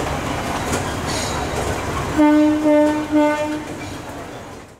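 Train horn on a Matheran Hill Railway narrow-gauge train sounding a quick run of three or four short toots, over station crowd noise.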